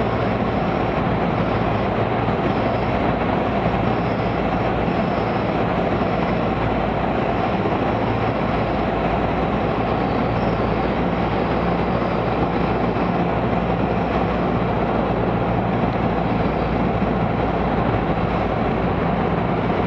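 Steady drone of a Cessna 172's piston engine and propeller heard from inside the cockpit, with several low hums under a broad rush of airflow.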